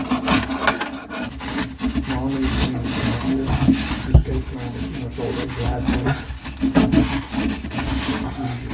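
A tool scraping old plumber's putty off a sink's drain opening, in repeated irregular rasping strokes.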